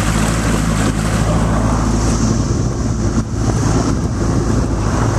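Mercury 40 hp outboard motor running steadily, with wind noise on the microphone.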